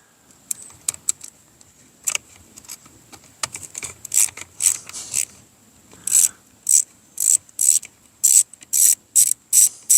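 Ratcheting hand tool clicking in short strokes while backing out coarse-thread screws from a weed whacker's plastic housing. Scattered clicks and scrapes at first, then from about six seconds in a steady run of ratchet strokes, about two a second.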